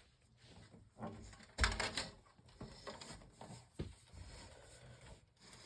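Knocks, bumps and rustling as a heavy metal-framed box fan is handled and turned around, with a solid thump about one and a half seconds in and a sharp click near four seconds.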